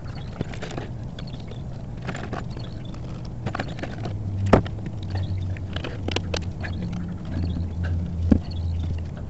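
Clicks, taps and knocks of gloved hands handling the plastic waste gate valve and pipe fittings of an RV black water tank, with sharp knocks about four and a half seconds in and again near the end. A steady low hum runs underneath and grows louder about halfway through.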